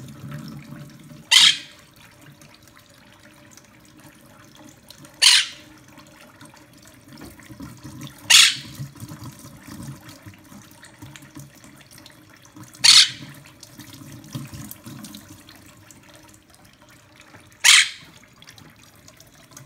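Kitchen faucet running a thin stream into a plate of water where a Quaker parrot is bathing, with five short, sharp, loud sounds from the bathing parrot a few seconds apart.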